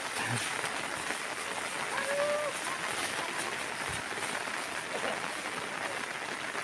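Steady heavy rain falling, an even hiss of rain on the surroundings.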